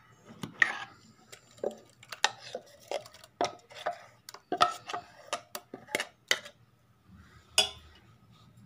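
A steel spoon clinking and scraping against a steel mixer-grinder jar and bowl while thick ground batter is scraped out of the jar. The clinks come in a quick irregular run for about six seconds, with one last clink near the end.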